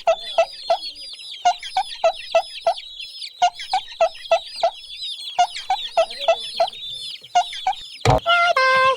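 Chickens calling: a dense, continuous chorus of high chick peeps, with short, lower clucks in quick runs of three or four. About a second before the end, a sudden loud hit is followed by a series of held tones that step down in pitch.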